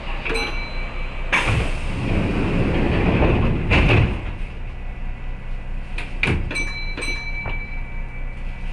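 Train doors sliding shut: a loud rush of noise that ends abruptly about four seconds in, followed by a few sharp clicks. A high electronic beep sounds briefly near the start and again through the second half.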